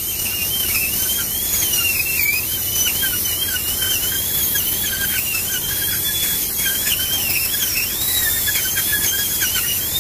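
High-speed dental handpiece with a round bur drilling dry, without water coolant, into a decayed tooth to cut the access opening to the pulp chamber. It gives a continuous high whine whose pitch wavers up and down as the bur bites.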